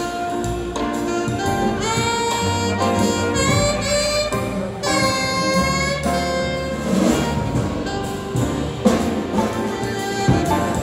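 Live jazz: a saxophone plays bending melodic phrases over grand piano accompaniment and low bass notes.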